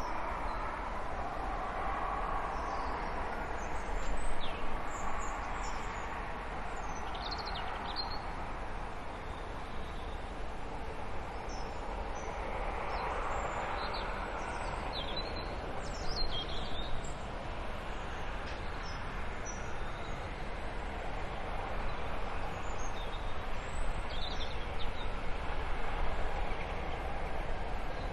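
Class 47 diesel locomotive running light in the distance, its Sulzer engine a steady drone as it approaches, growing a little louder near the end. Small birds chirp on and off over it.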